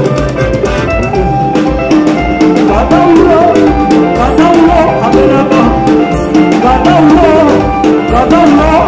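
Live band playing upbeat dance music with a steady drum beat.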